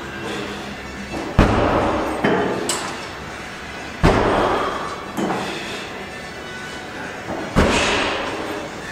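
Gym weights banging down three times, about every three seconds, with a hard echo. After the first two bangs comes a smaller knock about a second later.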